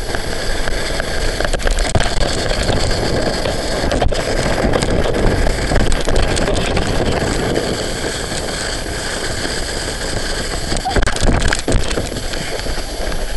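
Wind rushing hard over a small action camera's microphone while riding a towed tube at speed, a loud steady roar, with a few short knocks from the camera being handled.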